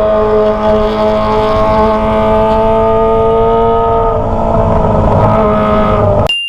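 Kawasaki ZX-25R's 250 cc inline-four engine running at high revs through a Toce aftermarket exhaust, its pitch creeping slowly upward and then turning rougher about four seconds in. The sound cuts off abruptly near the end.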